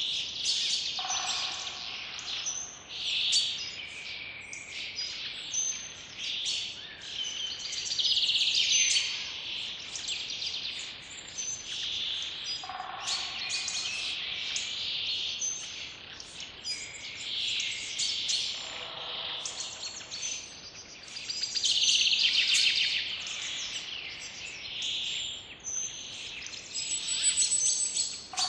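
Several birds chirping and singing at once, a dense chorus of short, high calls and trills that never stops. A lower-pitched call comes in every several seconds.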